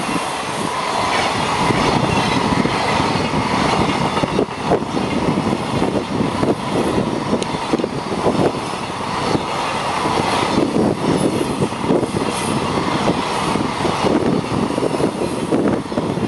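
Container wagons of a long freight train rolling past at speed, a steady rumble of wheels on rail broken by rapid, irregular clattering knocks as the wheels cross the rail joints.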